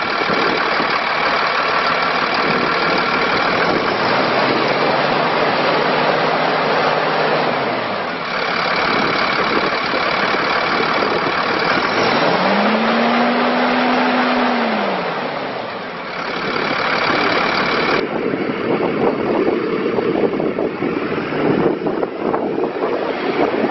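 Cummins diesel engine of a Freightliner M2 truck running and revved up twice. Each time the revs are held for a few seconds, then drop back to idle. About two-thirds of the way through, the sound changes to the engine heard outdoors with wind on the microphone.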